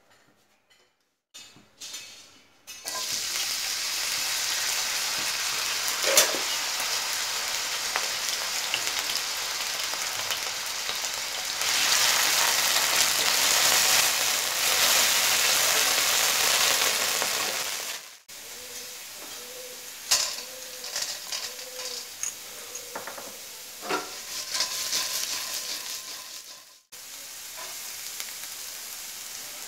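Chopped ingredients sizzling in hot oil in a nonstick wok, stirred with a wooden spatula. The sizzle starts about three seconds in, is loudest in the middle, then drops to a softer sizzle broken by short knocks and scrapes of the spatula on the pan.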